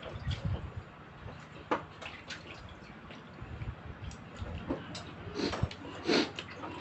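Wet eating sounds: chewing, slurping and lip smacks, with scattered sharp clicks. The loudest smack comes about six seconds in.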